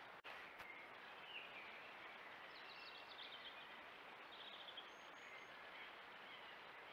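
Faint steady hiss from a trail camera's microphone, with faint high bird chirps and a few short trills in the background and a brief dropout near the start.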